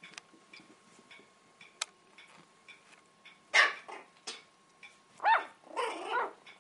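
Puppies barking in short, high-pitched yips during play: one about halfway through, then two more near the end. A clock ticks faintly about twice a second underneath.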